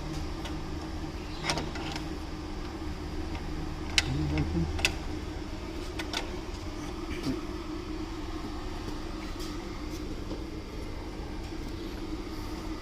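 Scattered sharp clicks and knocks from the fittings of a tungsten electrode grinder being handled and adjusted, the loudest about four seconds in, over a steady background hum.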